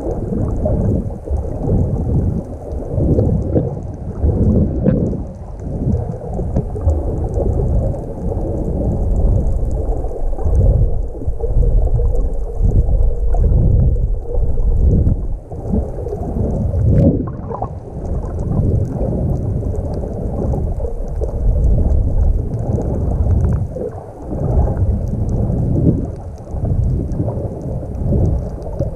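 Muffled, uneven low rumble of water moving around an action camera's waterproof housing held underwater, surging and easing every second or so.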